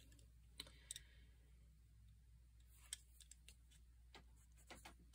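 Near silence: a few faint clicks and taps as pencils are picked up and set down, over a steady faint low hum.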